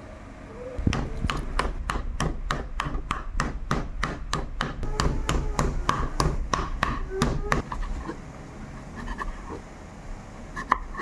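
Raw pork chop being pounded with a meat tenderizer on a wooden chopping board: a rapid run of dull knocks, about three a second, that stops about seven and a half seconds in.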